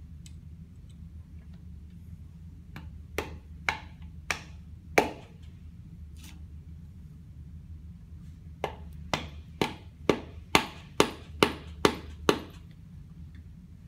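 Rubber mallet knocking a spring pin into a rotary lobe pump's flange ring: four spaced knocks, then after a pause a faster run of nine, about two a second. A low steady hum lies underneath.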